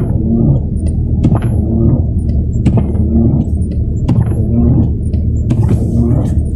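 A vehicle engine running steadily with a loud low rumble, with repeated sharp clicks and knocks over it.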